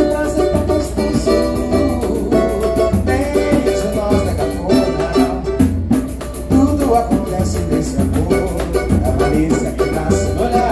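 Live samba played on cavaquinho, pandeiro and a tall wooden hand drum: the cavaquinho strums chords over the pandeiro's jingling rhythm, and the hand drum gives a deep stroke about once a second.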